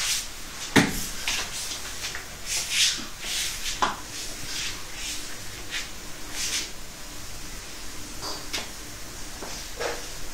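Cats scrabbling and pouncing on a tile floor: scattered scrapes, taps and knocks, with a sharp knock about a second in.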